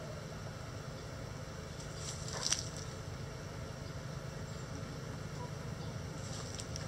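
Backyard chicken flock foraging in a dirt run over a steady low rumble, with one short sharp sound about two and a half seconds in and a faint one near the end.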